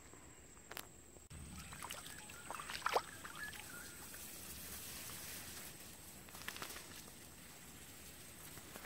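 Small dogs' paws splashing and squelching through shallow water and wet mud, in a short flurry that is loudest about three seconds in, with a few more steps later. A faint steady hiss runs underneath.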